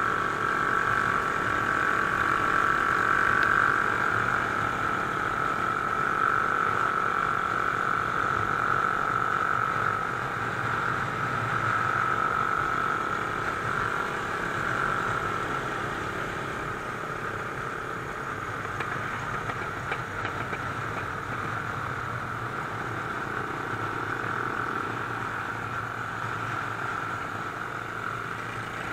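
Mash Cafe Racer 250 motorcycle engine and exhaust running steadily in fifth gear at cruising speed, heard from on board with wind rushing past. A steady high whine stands out in the first half and eases off about halfway through.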